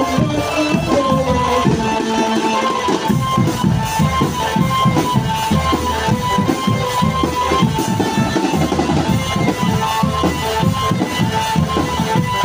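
A drumband playing lively traditional East Javanese music: a fast, busy drum rhythm under a high melody that repeats in short phrases.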